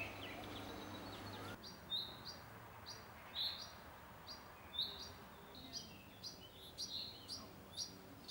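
Small birds chirping in trees: a run of short, sharp high notes, irregularly spaced, starting about a second and a half in, over a faint outdoor background.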